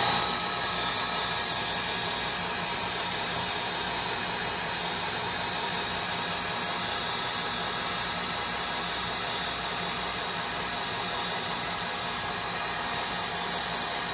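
Colchester Student lathe taking a heavy roughing cut in 40 Rockwell 17-4 PH stainless steel with a carbide TCMT insert, at 950 rpm and 3 mm off the diameter in one pass. The spindle, gearing and cut make a steady, unchanging mechanical noise.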